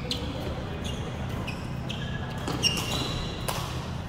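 Badminton rally: sharp racket strikes on the shuttlecock, the loudest about two and a half seconds in, with short squeaks of court shoes on the hall floor, over a steady low hum.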